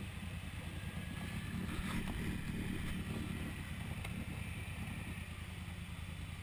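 ATV engine running with a steady low rumble, a little louder about two seconds in, while muddy water churns and splashes around a half-submerged quad.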